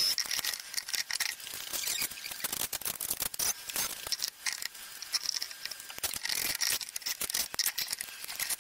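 Rapid clicks, taps and scrapes of a bench power supply's case being taken apart: screws backed out and the side panels and cover lifted off.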